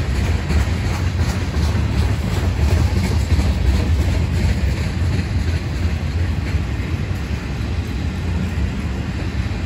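Freight cars (boxcars and tank cars) of a manifest train rolling past: a steady, deep rumble of steel wheels on rail, with light clicks of wheels over rail joints, mostly in the first few seconds.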